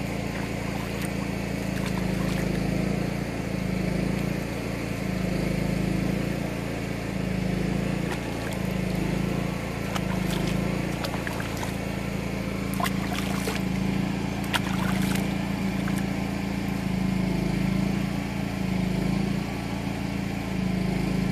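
A motor running steadily, its hum throbbing slowly and evenly, with water sloshing and splashing in a basin as a small dog is washed in it; the splashes come mostly in the second half.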